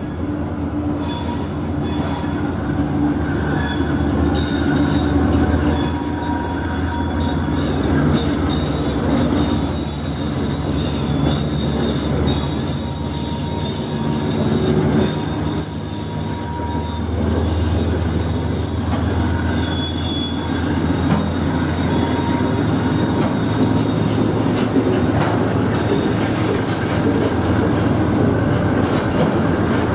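Aurizon 2800 class diesel-electric locomotives hauling an intermodal freight train past at close range: a steady low engine drone, with high-pitched wheel squeal through most of the pass. Container wagons follow the locomotives.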